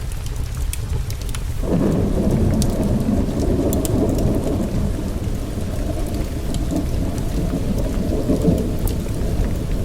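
A long roll of thunder sets in about two seconds in and rumbles on for several seconds before easing, over steady heavy rain. Scattered sharp crackles and ticks run through it.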